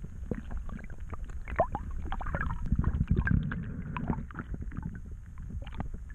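Water churning and bubbling as a netful of fish is let go back into the river, heard underwater: a dense low rumble with many small clicks and knocks, busiest around the middle.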